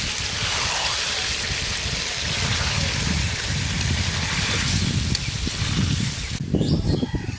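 Chicken curry sizzling and bubbling in a hot pan: a steady hiss with low, uneven bubbling under it, which cuts off abruptly near the end.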